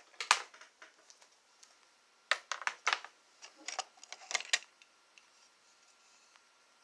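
Sharp clicks and clatter in irregular clusters, with a loud click just after the start and a quick run of them from about two and a half to five seconds in.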